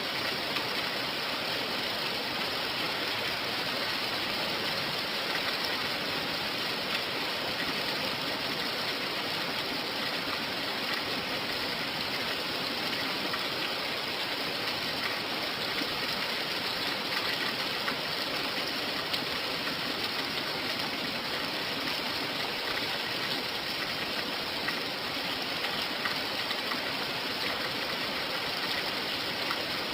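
Steady rain falling, an even, unbroken hiss with no separate drops standing out.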